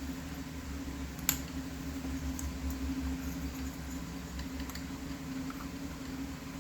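Steady low hum of a garage fan, with a few light clicks from parts being handled, one sharper click about a second in.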